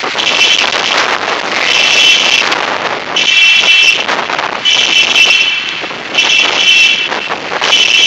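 Hurricane-force wind rushing and buffeting the microphone, loud and gusting. Over it a high tone repeats about every second and a half, each lasting under a second.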